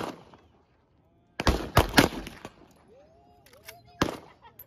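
A 1964 Winchester .30-30 lever-action rifle fires a shot about a second and a half in, followed closely by two more sharp cracks. About four seconds in comes a single sharp metallic clack as the lever is worked and the spent case is ejected.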